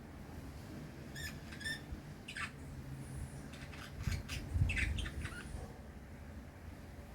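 Birds giving short, harsh calls and chirps in scattered bursts, a few quick notes at a time, some sweeping downward. A low rumble swells briefly about four to five seconds in.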